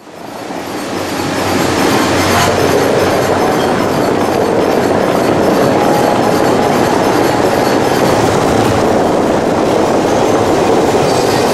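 Steady, dense rushing noise of the dancing fountain's water jets and falling spray, fading in over the first couple of seconds.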